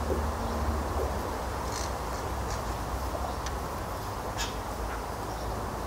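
Outdoor ambience: a steady low rumble on the microphone, and a buzzing insect that fades out about a second in. A few faint, short chirps are scattered through.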